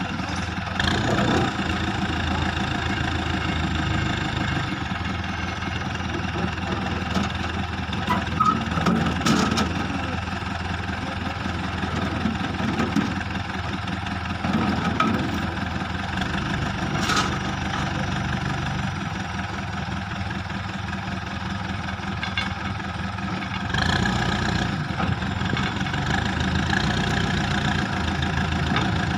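Terex 740 backhoe loader's diesel engine running steadily, with a few sharp knocks along the way; the engine sound gets louder about 24 seconds in.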